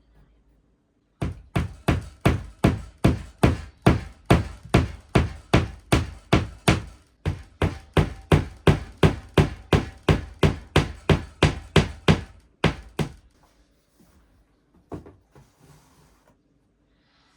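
Hammer striking a nail to hang a canvas, a steady run of blows about three a second for some twelve seconds with a short break midway, then a few lighter knocks.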